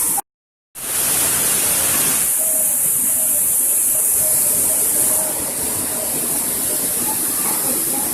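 A waterfall's steady rush of falling water, an even hiss. The sound cuts out for about half a second just after the start.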